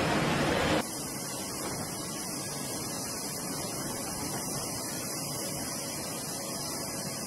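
Jet engine noise on a carrier flight deck, a loud steady roar that drops off abruptly about a second in to a quieter steady hiss.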